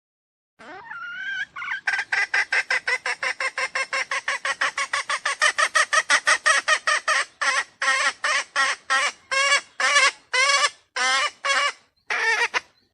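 Junglefowl lure call: one rising note, then a fast run of short repeated notes, about six a second, that slows to a few a second near the end.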